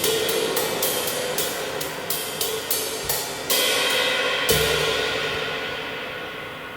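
Cymbals struck in quick repeated strokes, about three to four a second, then two heavier strikes a second apart, the metal ringing on and fading away.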